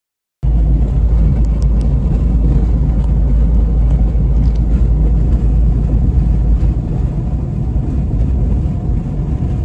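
Steady low rumble of a car driving at highway speed, heard from inside the cabin: tyre and road noise with the engine underneath. It starts abruptly after a brief cut to silence.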